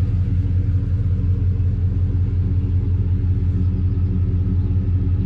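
Vehicle engine idling steadily, a constant low hum with no flasher clicking.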